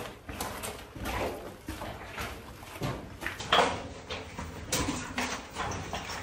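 Footsteps scuffing and knocking on a rocky cave path, irregular and a few each second, the loudest about three and a half seconds in.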